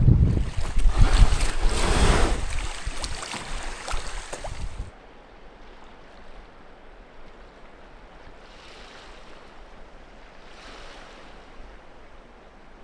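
Strong wind buffeting the microphone with choppy waves around a canoe, in loud gusts for about five seconds; then it drops suddenly to a much quieter, steady wash of wind and water with two soft swells.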